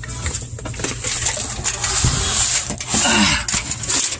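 Dense rustling and scraping noise that swells about two to three seconds in, over a steady low hum.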